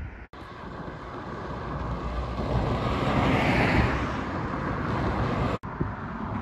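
A car passing along the road, its tyre and engine noise swelling to a peak about halfway and then easing off. The sound cuts off abruptly just over five seconds in, and another vehicle's noise begins to build near the end.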